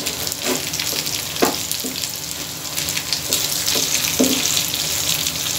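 Chicken pieces sizzling in hot oil in a frying pan, with a couple of short knocks as a wooden spatula turns the pieces.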